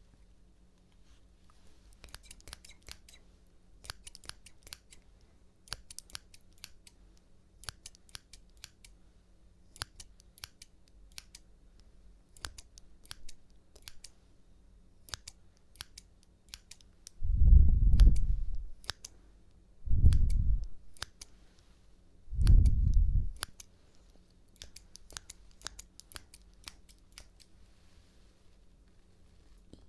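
Scissors snipping close to the microphone: runs of sharp, crisp clicks, several a second, with short pauses between them. About halfway through, three loud, muffled low rumbles of about a second each cut in.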